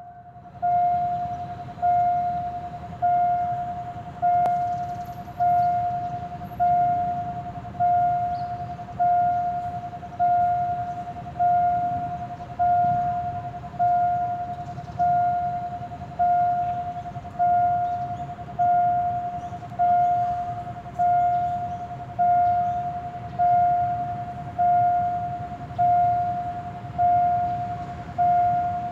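Railway warning bell ringing a single clear tone, one strike about every 1.2 seconds, each ringing out before the next, warning of an approaching train. A steady low hum lies underneath.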